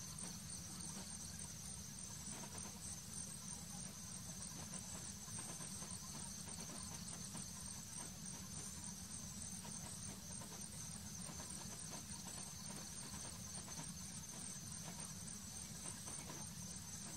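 Steady outdoor background: an even, high insect-like drone with a fast flicker, over a low hum. No bird song stands out.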